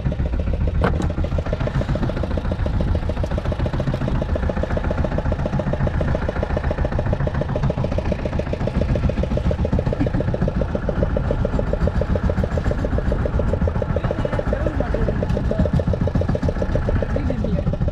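Fishing boat's engine running steadily, with a fast, even beat.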